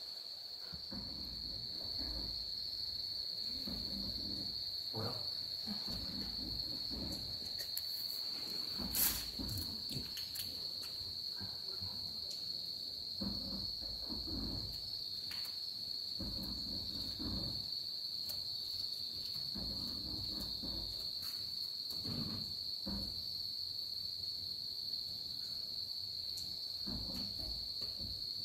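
Steady, high-pitched insect trill running without a break. Under it come soft, recurring rustles of a hand stroking a kitten's fur, and one sharp click about nine seconds in.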